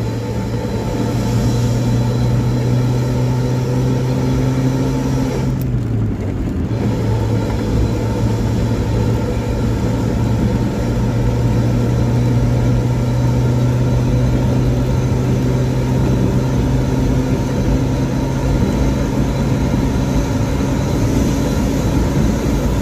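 Warga Baru bus's "ngorok" (snoring) exhaust with a steady, loud, low drone as the bus runs on the highway. About six seconds in, the note briefly dips and thins for about a second, then picks up again.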